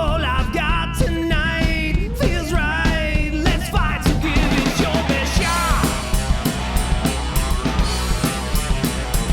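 Rock song with a singer and a driving drum beat, laid over the footage as background music.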